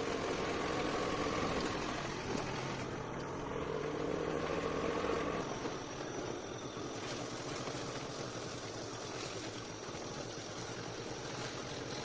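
Motor vehicle engine running steadily while driving along a road.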